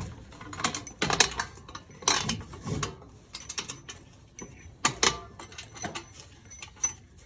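Small metal hardware clinking and rattling as a bolt, washer and brake spring are worked into place by hand on a muffler: irregular sharp clicks and short rattles, busiest in the first few seconds and again about five seconds in.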